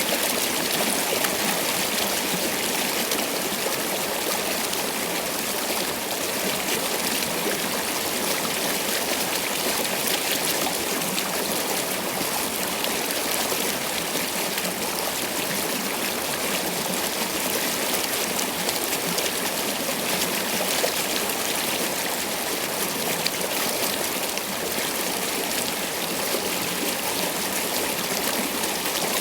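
Water flowing steadily in a stream, an even rushing and trickling with no change.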